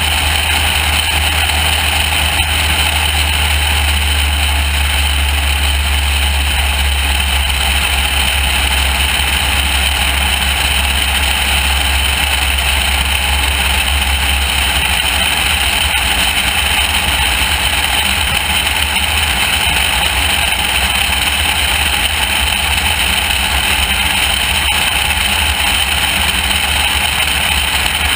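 Loud, steady wind rushing over a camera mounted under the wing of a light high-wing airplane in flight, with the airplane's engine droning underneath.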